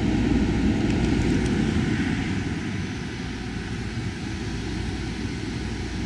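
Self-contained marine air conditioner running: a steady low machine drone, a little quieter after about two and a half seconds.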